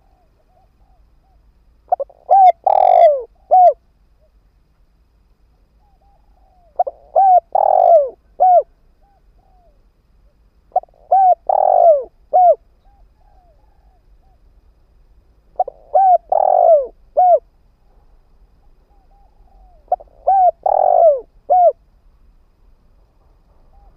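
Spotted dove (cu gáy) decoy bird calling, a luring call meant to draw in wild doves. It gives five cooing phrases, about one every four to five seconds, each a quick run of notes around one louder, longer coo, with faint soft coos in the gaps.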